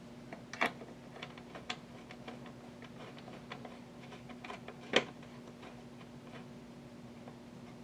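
Irregular small clicks and taps of tools and parts being handled during bench work on an amplifier, with one sharper click about five seconds in, over a faint steady hum.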